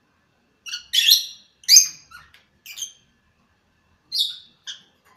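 Rosy-faced lovebirds calling: about seven short, high-pitched chirps, the loudest in the first two seconds, then a pause and two more calls near the end.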